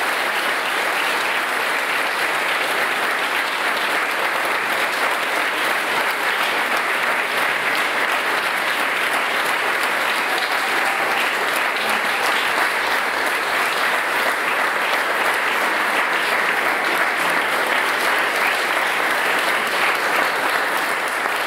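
An audience applauding: a long round of steady clapping.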